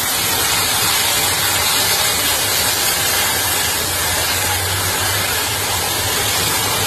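A loud, steady rushing hiss from a burning car, with a faint low hum beneath it.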